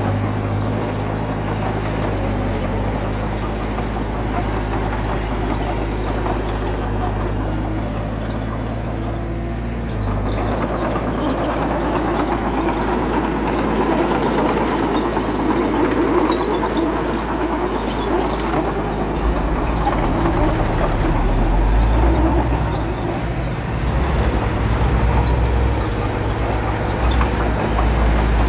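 Diesel engine of heavy earthmoving equipment running under load. It gets louder and rougher from about ten seconds in, and its deep note shifts near twenty seconds.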